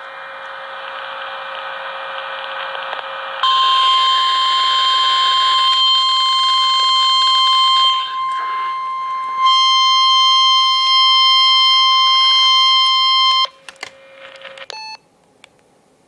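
NOAA Weather Radio 1050 Hz warning alarm tone through a weather radio receiver: one steady, loud, single-pitched tone held for about ten seconds, signalling a warning alert (here a severe thunderstorm warning). A rising hiss of radio static comes before it, and the tone cuts off suddenly near the end, followed by a few clicks.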